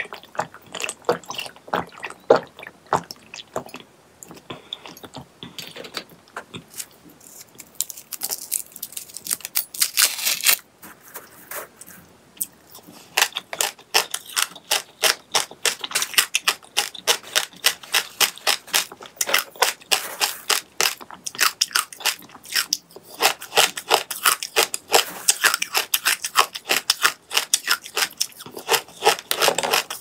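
A person eating close to the microphone: a dense, irregular run of crunching, clicking and wet mouth sounds, with a thicker burst about ten seconds in and a short lull around twelve seconds.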